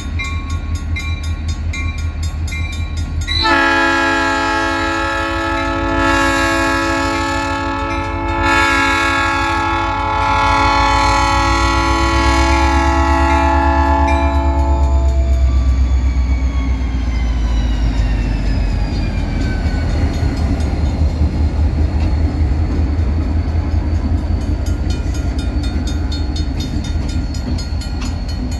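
Diesel locomotive's cast Nathan P3 three-chime air horn sounding a few seconds in, swelling twice and then holding a long blast for about eleven seconds in all, over the low rumble of EMD diesel engines. After the horn stops, the engines keep running and a thin whine falls in pitch.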